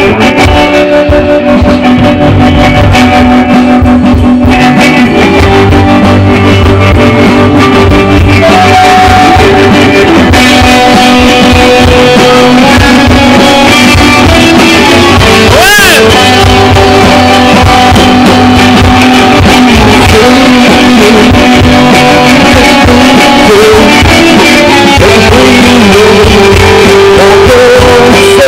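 Live rock band playing loud: electric guitars, bass guitar and drums.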